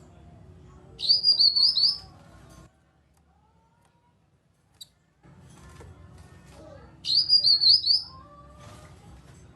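A cucak kinoi calling: two loud bursts of quick, sharp, high chattering notes, about six seconds apart. Fainter, lower bird chirps and a low hum run underneath.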